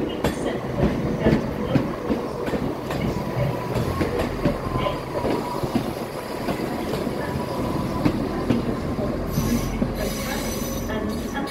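East Midlands Railway Class 170 Turbostar diesel multiple unit running past, its underfloor diesel engines rumbling and its wheels clicking over the track joints. A thin steady wheel squeal comes in about four seconds in and fades out about nine seconds in.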